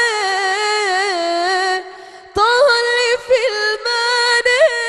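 A woman's solo voice singing an Islamic inshad in praise of the Prophet: long, ornamented melismatic lines that wind up and down in pitch, with no instruments heard. She breaks off briefly for a breath about two seconds in, then resumes.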